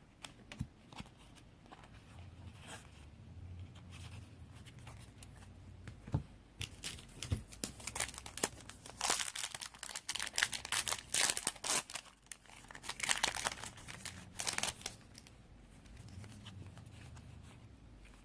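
Foil Yu-Gi-Oh! booster pack wrapper being torn open and crinkled by hand: a few light clicks at first, then several seconds of crackling tearing in the middle.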